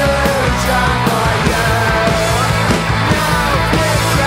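Punk rock song playing: loud electric guitars over a steady drum beat.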